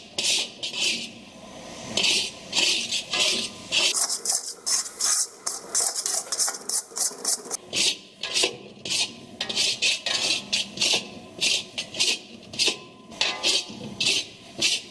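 Metal spatula scraping and pushing a thick yellow paste around a metal kadai (Indian wok), in quick repeated rasping strokes, a few each second.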